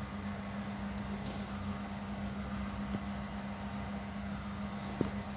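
Steady low background hum with an even noise underneath, and one short click about five seconds in.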